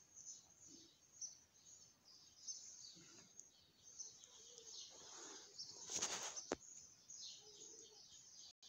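Near silence with faint high chirping of distant birds in the background, and one short burst of noise about six seconds in.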